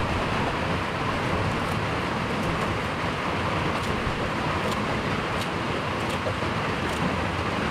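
Steady running noise of a moving road vehicle, an even rumble and rush with a few faint ticks scattered through it.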